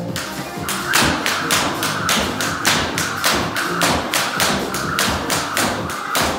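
Speed rope double-unders: the cable rope slaps the floor in an even rhythm of about three to four slaps a second, starting just under a second in. Background music plays underneath.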